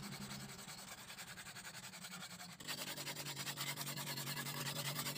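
Coarse whetstone rubbed back and forth along the curved steel blade of an egrek (oil palm harvesting sickle), in quick, even strokes of several a second. Faint at first, then clearly louder from about two and a half seconds in.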